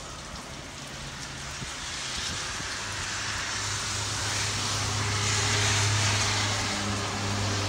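A motor vehicle passing on a wet road: tyre hiss swelling over a steady engine hum, loudest about six seconds in.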